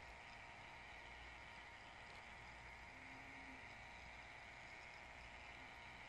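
Near silence: a faint, steady hiss and low hum of room tone.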